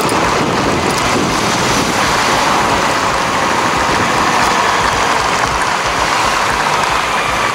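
Steady wind rushing over the microphone while riding a motorcycle at road speed, with the Honda CB400 Super Four's inline-four engine running underneath as a faint steady note.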